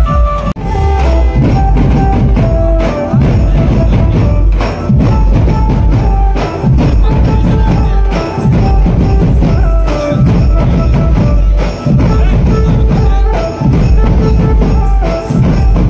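Loud dhumal band music: fast, dense drumming over heavy bass, with a melody line in held notes.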